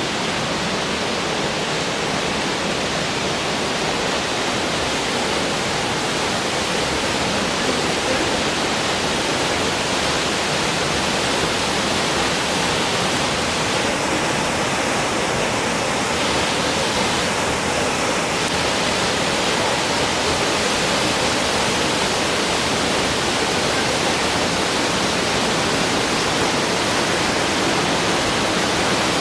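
Rushing water, a steady loud rush that does not let up.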